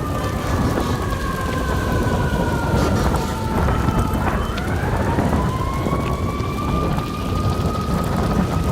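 An emergency vehicle siren wailing: one tone that falls slowly, then rises again about four seconds in and holds. Under it a heavy low rushing rumble.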